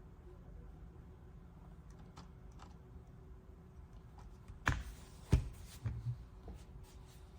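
Keys on an AULA F75 Pro mechanical keyboard being pressed and handled: a few faint clicks, then two sharp knocks under a second apart and a few softer taps after them.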